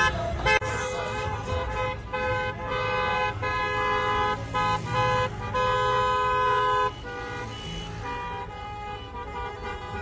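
Several car horns honking, with long held blasts that overlap and break off, over the low rumble of road traffic. The honking drops off to a fainter level about seven seconds in.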